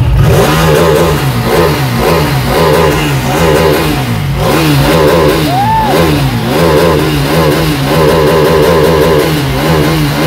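Ducati Panigale 959's Superquadro V-twin engine, revved in about ten quick throttle blips, each rising and falling back toward idle, and held high for about a second near the end.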